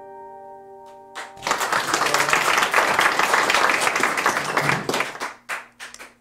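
The last chord of an acoustic guitar rings out and fades. About a second in, applause begins and carries on for several seconds, then thins to a few scattered claps near the end.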